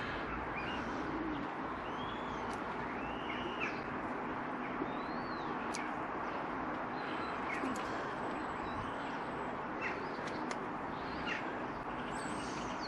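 Small birds chirping now and then over a steady background hiss, with a few faint clicks.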